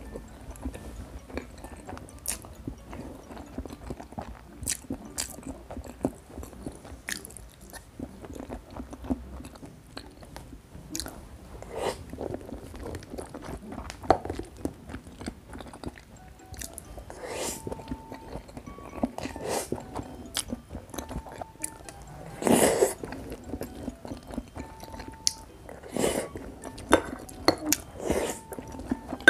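Close-miked chewing and biting of a saucy braised-pot-over-rice meal, irregular wet mouth sounds with sharp little clicks, over soft background music.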